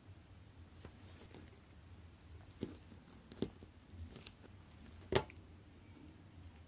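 Faint, scattered clicks and taps of small watchmaking hand tools on tiny watch parts, about five over several seconds, the loudest a little past the five-second mark, over a low steady hum.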